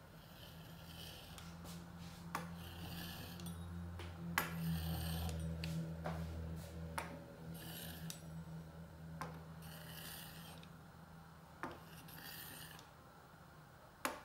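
Pizza wheel cutter rolling through rolled-out dough against a wooden board: a series of rasping strokes about a second long each, with a few sharp taps. A low steady hum runs underneath.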